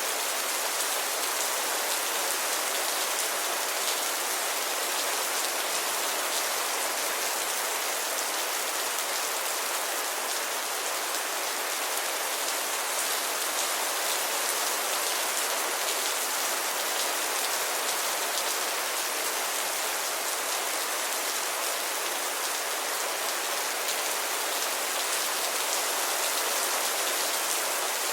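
Steady rainfall: an even hiss of rain with fine drop ticks running through it, unchanging throughout.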